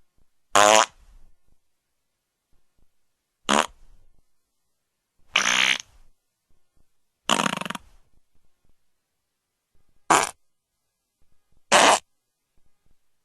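Six fart sound effects played one after another. Each is a short buzzy burst of under a second, with a pause of one to three seconds between them.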